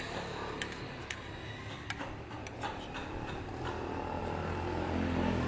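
A low engine hum from a passing vehicle, growing louder toward the end, with light clicks of a metal spoon against a plate.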